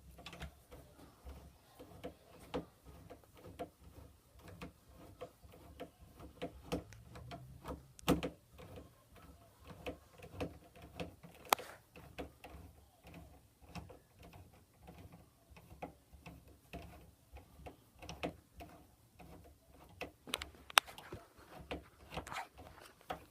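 Phillips screwdriver driving a door handle's mounting screws by hand, with metal handle parts shifting: a run of small irregular clicks and ticks, with a few sharper clicks about eight, eleven and twenty-one seconds in.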